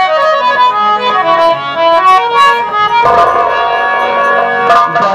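Live instrumental music from the stage band: a melody of held notes stepping up and down, with a few drum strokes.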